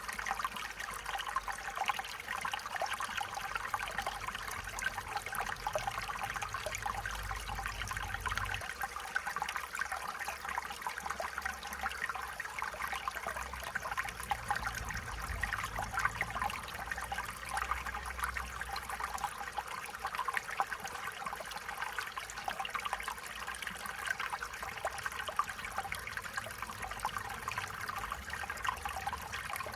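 Stream water flowing and trickling steadily over stones, a continuous babbling splash.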